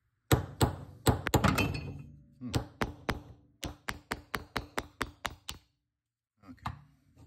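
Ball-peen hammer striking a steel pin punch to drive the firing-pin retaining roll pin out of a Ruger 10/22 bolt. It starts with a quick cluster of hard blows, then about a dozen lighter, evenly spaced taps at roughly four a second.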